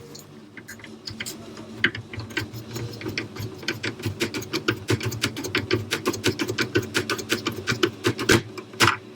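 Screwdriver clicking rapidly while screws are driven back into a Sega Saturn's plastic case: an uneven run of sharp ticks, several a second, growing denser about two seconds in.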